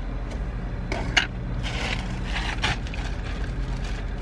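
Clear plastic bag crinkling and rustling as it is handled, in a few short bursts with a sharp click about a second in, over a steady low hum.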